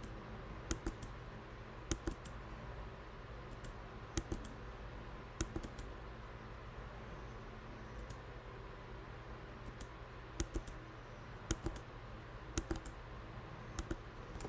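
Computer keyboard keys pressed one at a time and in short runs of two or three, about every one to two seconds, over a steady low hum.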